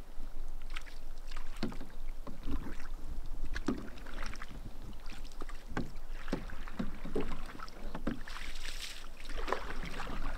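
A canoe being paddled: irregular paddle strokes with splashes of water and light knocks, over a steady low rumble.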